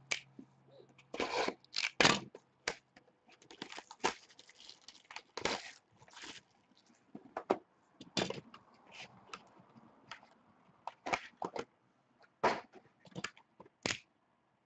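Trading-card box packaging being cut and torn open by hand: a string of short, scratchy rips and crinkles at an uneven pace.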